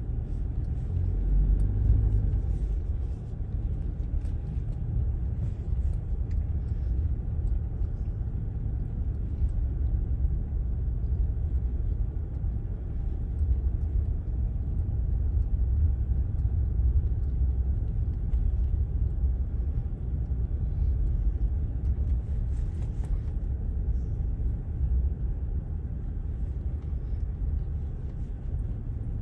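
Steady low rumble of a vehicle driving on packed beach sand, heard from inside the cabin: engine and tyre noise.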